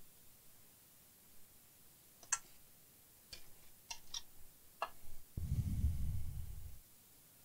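Light clicks and taps of a TV power supply board and small parts being handled on a wooden bench, about five in two and a half seconds, followed about five seconds in by a low rumble lasting about a second and a half.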